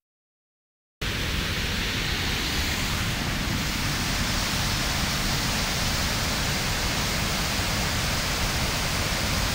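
Waterfall pouring over a wide ledge: a steady rush of falling water that cuts in suddenly about a second in, after silence.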